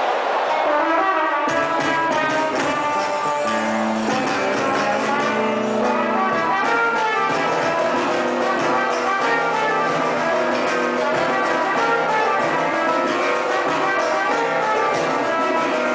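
Samba-rock music with horns. The bass and the full band come in about a second and a half in.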